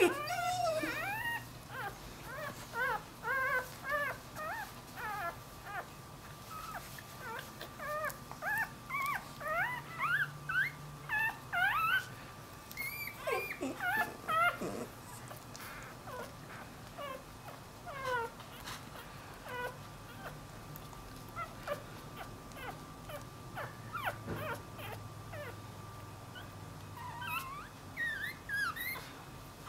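Newborn Dachshund–Jack Russell mix puppy whining: a rapid series of short, high-pitched squeaky cries, thinning out about halfway and picking up again near the end. These are the cries of a newborn puppy separated from its mother, calling for her.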